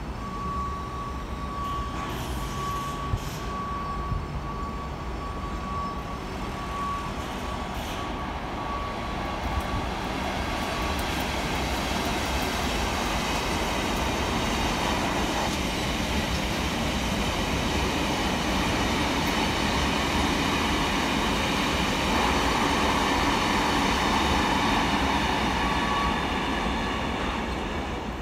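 A Class 59 diesel freight locomotive with its two-stroke EMD V16 engine passes at speed hauling freight wagons, the engine and the wheels on the rails rumbling. A thin steady high ringing tone carries over the first ten seconds as it approaches. The sound grows loudest in the middle and dies away near the end as the wagons clear.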